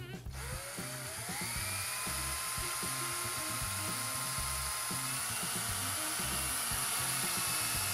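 Handheld power drill with a small bit boring a hole through a 3D-printed PLA plastic piece. The motor whine rises as it spins up just after the start, then runs steadily until it stops near the end.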